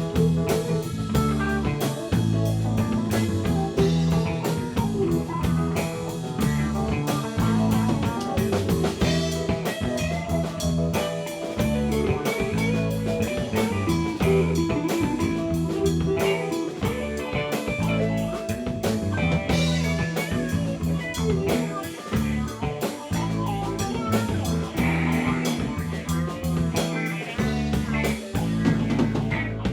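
A rock band playing a blues-rock song with guitar, bass and drum kit, a steady driving beat throughout.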